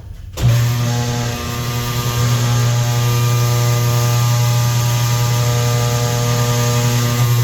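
Electric motor of a motorcycle tire changer running steadily with a low hum as it turns the wheel, starting about half a second in.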